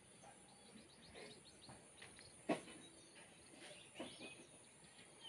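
Faint outdoor garden ambience: a steady high insect hum with a few short bird chirps scattered through it, and one soft knock about halfway through.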